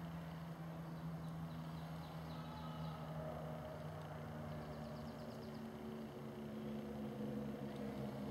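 Steady low hum of an engine running at a distance, its pitch shifting slightly, with a faint high trill about halfway through.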